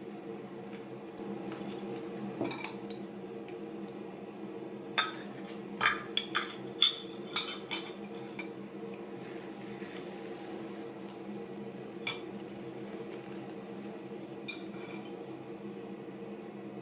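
Dishes and cutlery clinking as they are handled, with a burst of sharp clinks about five to eight seconds in and a couple more later, over a steady low hum.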